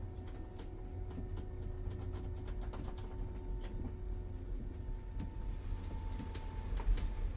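RV slide-out room moving in or out under its drive: a steady low hum with a faint, even whine and many light clicks and ticks, running smoothly on newly fitted roller skids.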